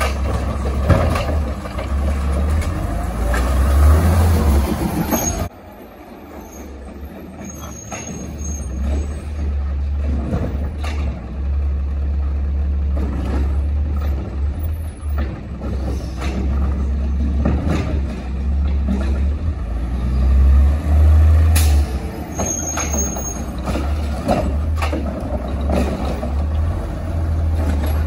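CNG Autocar ACX recycling truck with a Heil Rapid Rail automated side-loading arm working: a steady low engine and hydraulic hum with scattered clanks. The level drops suddenly about five seconds in, then builds back up and is loudest about three quarters of the way through.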